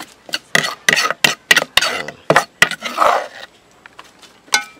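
Metal spoon scraping and knocking against a mortar and an aluminium cooking pot as pounded paste is scooped across: a quick run of sharp clinks and scrapes, then one clank near the end.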